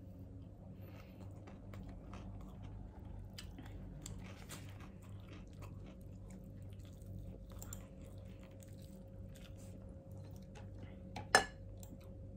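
A person eating by hand: quiet chewing and small mouth and finger noises over a faint steady hum. Near the end, a single sharp knock, the loudest sound.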